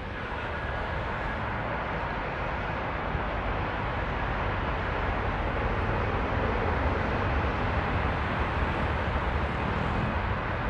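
Airbus A320-232's IAE V2500 jet engines running at taxi power: a steady rumble with a faint whine, growing a little louder over the first few seconds and then holding.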